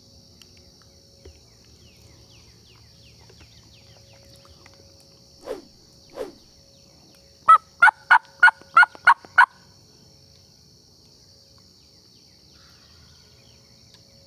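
Hen-turkey yelps on a hunter's turkey call. Two lower, falling notes come about five and six seconds in, then a quick, even run of seven loud yelps lasting about two seconds.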